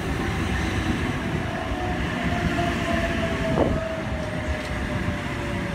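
Oscar (H set) electric train pulling into the platform. The running noise is steady, with one whine that slowly falls in pitch as the train slows.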